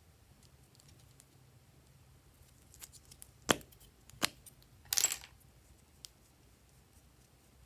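Plastic caps being pulled off small lipstick tubes: two sharp clicks less than a second apart, then a brief scratchy rustle of plastic handling and a faint tick.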